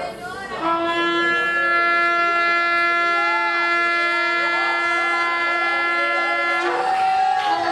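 A blown horn sounding one long steady note for about six seconds, then breaking briefly up to a higher note and dropping back to the low note at the end.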